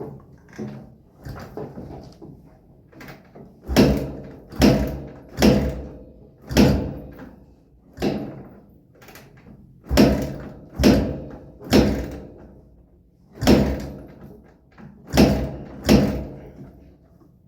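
Repeated kick-start attempts on a Kawasaki Barako motorcycle: about a dozen heavy thumps of the kick lever in quick groups, with the engine not catching, a sign of its hard starting.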